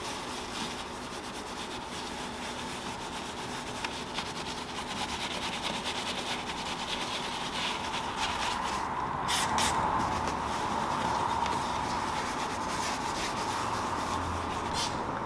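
Detailing brush scrubbing foam over the plastic interior door trim, a continuous scratchy rubbing made of many quick strokes. A steady hum runs underneath and grows louder about two-thirds of the way through.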